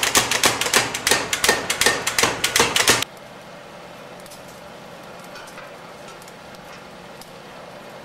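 Rapid, even metal hammering, several blows a second, on a steel bar at a smithy. It stops abruptly about three seconds in, leaving only a faint hiss with a few faint ticks.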